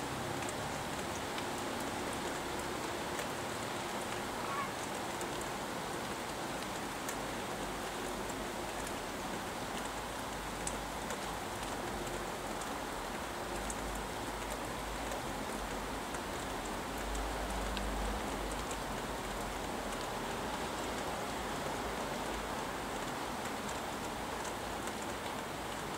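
Steady rain falling, an even hiss of drops on trees and surfaces, with a low rumble of highway traffic beneath it that swells about two-thirds of the way through.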